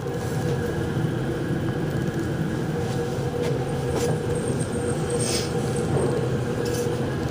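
Kone traction elevator car travelling between floors: a steady hum and rumble of the ride, with faint ticks.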